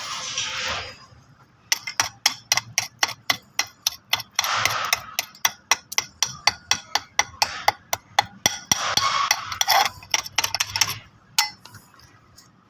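Quick, even hammer strikes on metal, about four a second, with three short hissing bursts. This is typical of a chipping hammer knocking slag off a weld bead.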